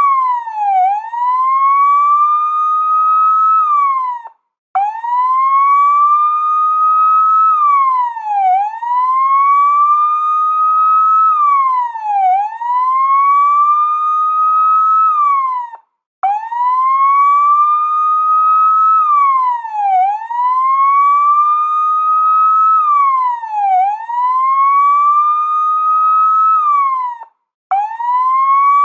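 Police car siren wailing: one tone slowly climbs, holds near the top, then drops quickly, repeating about every four seconds. The sound cuts out briefly three times, roughly every eleven to twelve seconds.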